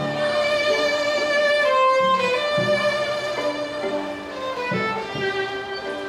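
Violin playing a melody of long held notes over lower accompanying notes that change beneath it.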